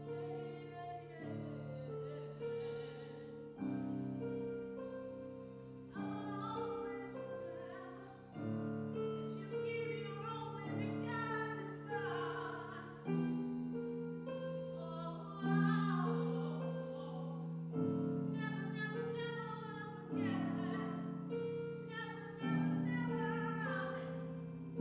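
Singing with piano accompaniment, the piano striking a new chord about every two and a half seconds.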